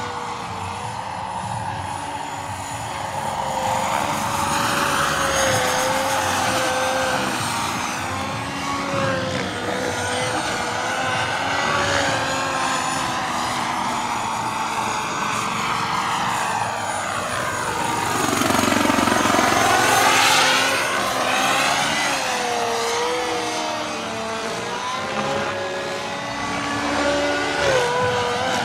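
Turbine-powered radio-controlled scale Bell 206 JetRanger helicopter in flight: a steady turbine whine with rotor noise. It swells and sweeps in pitch as the model passes closest, about two-thirds of the way through.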